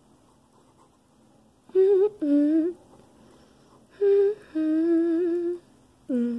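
A woman humming a tune to herself, in three short phrases of held notes with a slight waver, separated by quiet pauses.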